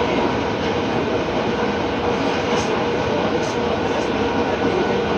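Tokyo Metro 07 series subway train heard from inside the car while running underground: a steady rumble of wheels on rail, with a faint steady tone from the drive system.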